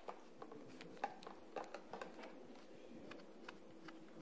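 Faint irregular clicks and taps of a flexible shaft being handled and fitted to a plastic rotary tool, over a faint steady hum.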